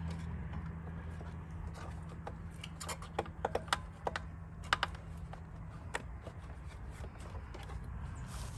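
Scattered light clicks and taps of a hand tool working a small screw and metal parts, most of them bunched between about three and six seconds in.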